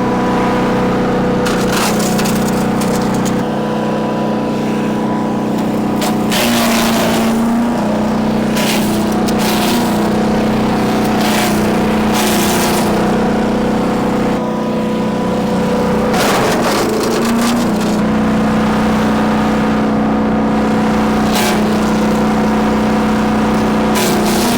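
Bilt Hard 7.5 hp 224cc gas wood chipper running steadily, with wood being fed through it: repeated sharp cracking and grinding as branches are chipped, and the engine note wavering under the load.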